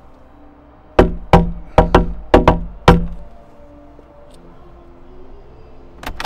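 Knocking on a front door: seven sharp knocks in about two seconds, in quick pairs with a last single knock. Near the end come two quick sharp clicks.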